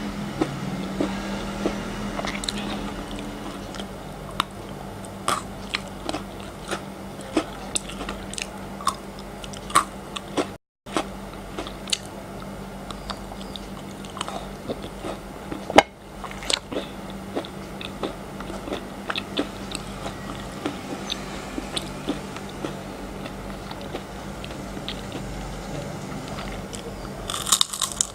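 Close-miked biting and chewing of frozen chocolate: crisp cracks scattered throughout over steady chewing. There is one louder crack about sixteen seconds in and a burst of crackling near the end.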